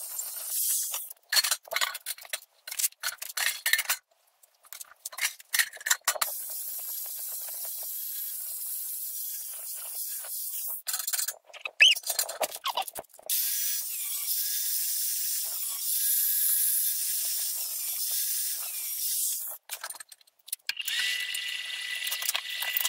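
Stick-welding arc crackling and sizzling on steel. It comes first in short bursts broken by silences, then in longer steady runs.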